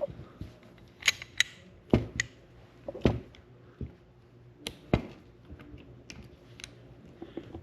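Merwin Hulbert revolver being handled: a series of about ten sharp clicks and knocks from its mechanism, irregularly spaced, the loudest about two and three seconds in.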